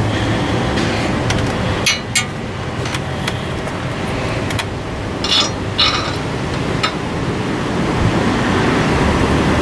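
Several sharp metal-on-metal clinks of hand tools and parts being handled, two about two seconds in and three more between five and seven seconds, over a steady low background rumble.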